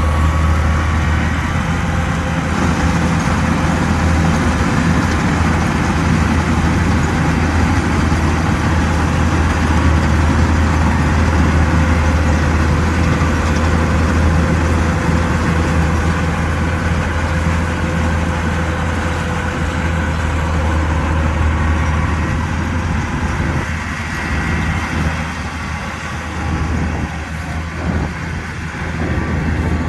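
Kubota combine harvester's diesel engine running steadily, a continuous low drone that eases slightly in the last few seconds.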